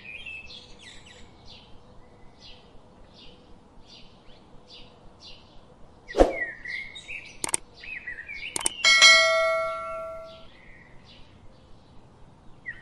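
Bird chirping over and over, roughly two short chirps a second. About six seconds in there is a sharp hit, and near nine seconds a bell chime rings out and fades over a second or so.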